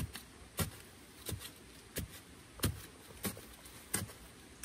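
Footsteps walking through forest undergrowth at an even pace, about one and a half steps a second, each step a short crunch with a soft thud.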